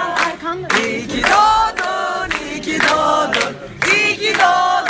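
A group of people singing and chanting together, with hand claps.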